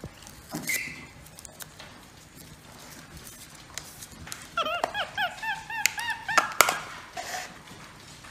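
Capuchin monkey giving a quick run of short rising-and-falling chirps, about six a second, for a second or two about halfway through. Around it are light rustling and a few sharp taps as the monkey handles a straw, the loudest tap just after the chirps.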